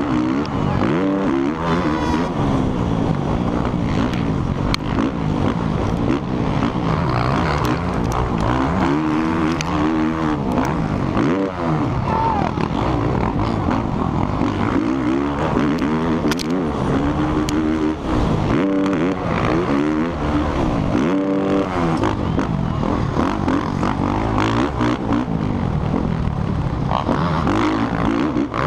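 Suzuki RM-Z450 four-stroke motocross engine heard up close from the bike at race pace, revving up hard and falling off again over and over through corners and jumps.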